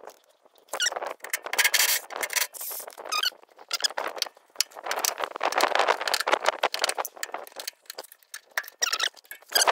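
Wrench working a rusty bolt on the anti-roll bar clamp of a Lada 2107's front suspension, giving squeaks and metal scraping in bursts with short pauses.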